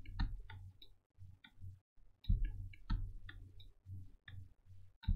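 Computer mouse and keyboard clicking: short sharp clicks at irregular intervals, about three a second, over a steady low hum.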